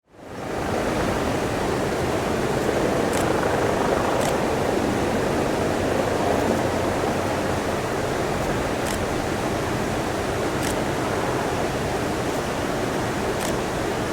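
Steady rushing noise that fades in at the start and holds level, with a few faint, brief high clicks.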